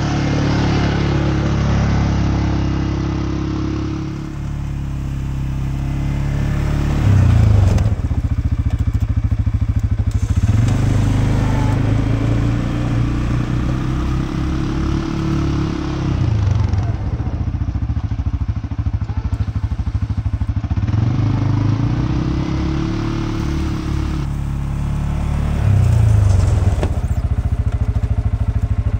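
CFMOTO CForce 520L ATV's single-cylinder four-stroke engine revving up and easing off over and over while plowing snow, its pitch rising and falling every few seconds.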